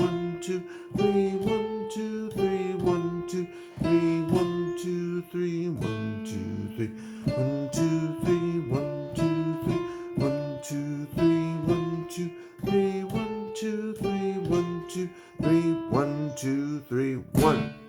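Piano playing the closing bars of a simple two-hand beginner's piece in three-four time, with right-hand melody over left-hand notes. It stops on a final chord near the end that rings and fades.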